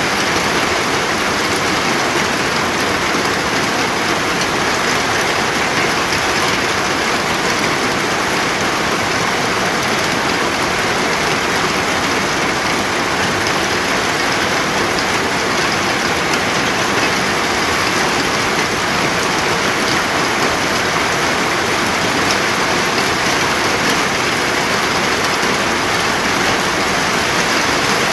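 Steady rain falling and pattering on a surface, an even hiss with no thunder or pauses.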